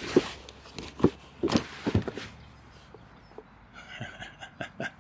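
Running footsteps on grass, heavy regular footfalls for the first two seconds or so, then slowing and going quieter; near the end a quick series of short rustling strokes.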